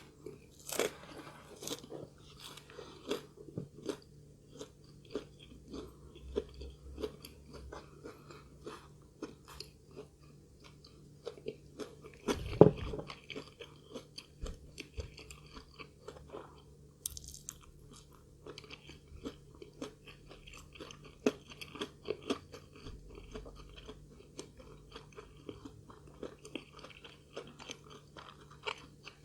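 Close-up chewing and crunching of food, a steady run of bites and chews, with one loud knock about twelve seconds in.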